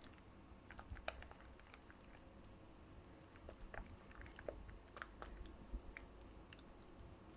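Near silence with faint, scattered small clicks and soft sticky ticks, and a few faint high chirps.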